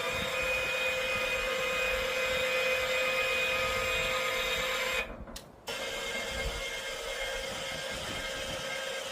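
Electric motor whining steadily at one pitch, cutting out about five seconds in and starting again under a second later.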